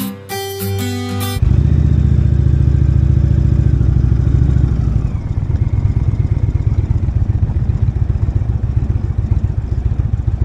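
A short stretch of music, then a motorcycle engine running at low speed close to the microphone: a loud, rapid low throb that eases a little about five seconds in.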